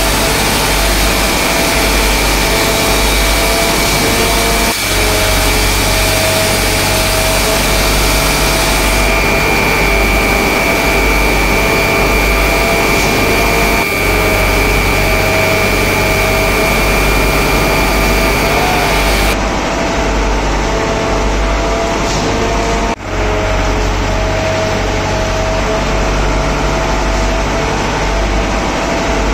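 Heavy tunnelling machinery running steadily: a shotcrete spray machine and transit mixer truck, a loud constant engine drone with a steady high whine, echoing in the tunnel. The sound shifts abruptly a few times.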